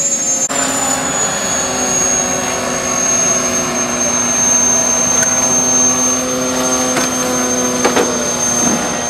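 Twin turbine engines of a radio-controlled A-10 Warthog scale jet running with a steady high-pitched whine as the model taxis.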